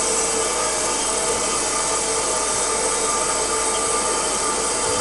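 MEP Shark 332 NC evo metal-cutting bandsaw running steadily, its blade cutting as the head is fed down under power in semi-automatic mode: a constant hiss with a steady whine.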